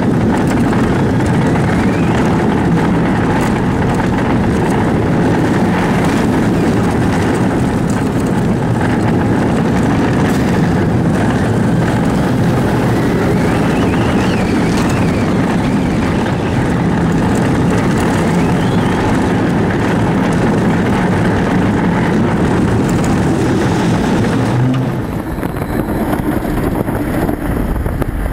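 Steel roller coaster train (Battlestar Galactica: Human) running along its track, heard from the front seat: a steady, loud roar of wheels on rail mixed with the rush of wind over the microphone. The roar eases off a little about 25 seconds in.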